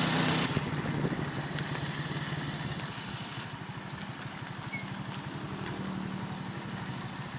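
Small motorcycle engine running steadily while riding along a road, a low even pulsing note. The hiss over it falls away about half a second in.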